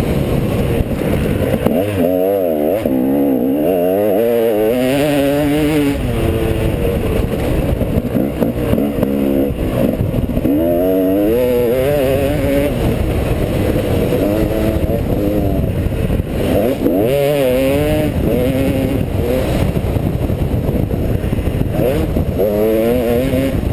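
Motocross bike engine revving hard and easing off again and again as it is ridden through corners and straights, its pitch climbing and falling with the throttle and gear changes. A steady low wind rush is on the microphone under it.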